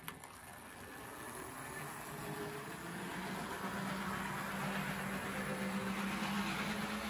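HO-scale Hobbytown E7 model diesel locomotive running on track: its Pittman DC91 motor hums and its wheels roll on the rails, growing steadily louder, with a small click near the start.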